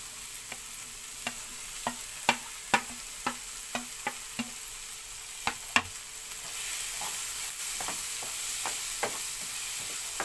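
Wooden spatula stirring diced vegetables and paneer in a hot kadhai, knocking against the pan in irregular strokes about twice a second. Frying sizzle underneath, which grows louder and steadier about six and a half seconds in.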